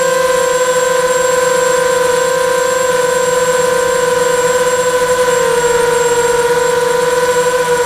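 Electric motors and propellers of a hovering multirotor drone whining steadily, heard close from its onboard camera; the pitch steps down slightly about five and a half seconds in.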